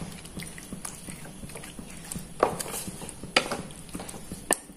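A wooden spatula scraping and knocking against a pan while marinated chicken pieces are stirred, with a few sharp knocks about a second apart. A faint steady sizzle runs underneath.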